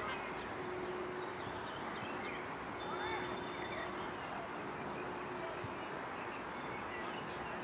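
An insect chirping steadily, a high-pitched chirp repeating about two and a half times a second, over an even background hiss with faint distant voices.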